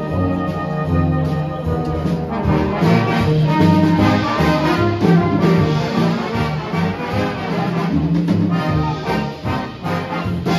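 A brass band playing live, with sustained chords and a moving melody.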